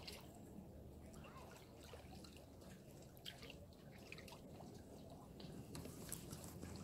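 Faint lakeside water lapping and dripping, with a few scattered small clicks.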